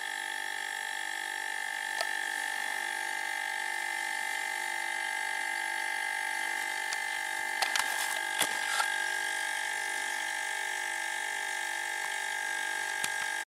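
Refrigerator compressor running steadily as it recharges a propane-bottle air tank after the pressure was let down, a steady whine with a faint even pulse, and a few light clicks about eight seconds in.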